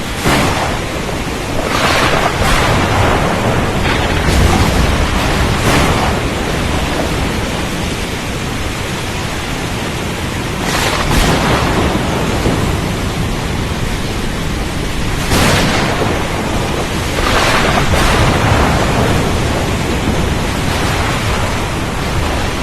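Storm at sea: a steady rush of wind, rain and water, swelling in surges a few seconds apart, some with a low rumble.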